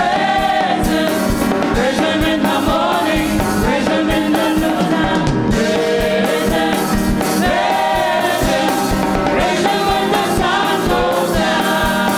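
A group of voices singing a gospel song together over band backing with a steady beat.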